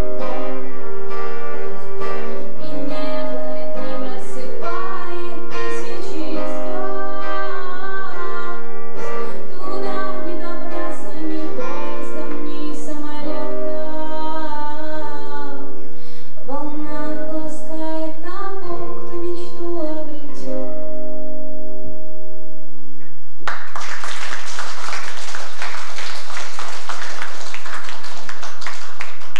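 A song with singing over plucked guitar chords, ending about 23 seconds in, followed by about six seconds of applause.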